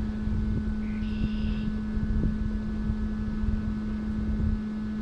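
Wind rumbling on the microphone over a steady low hum, with a brief faint high-pitched sound about a second in.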